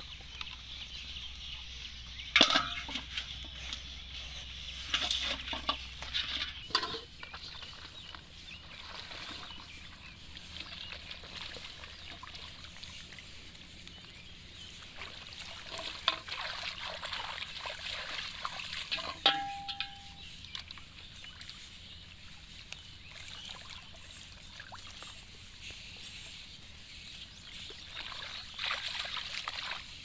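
Water sloshing and splashing as a person wades through shallow, weed-choked pond water. Several sharp clicks and knocks come in the first seven seconds or so.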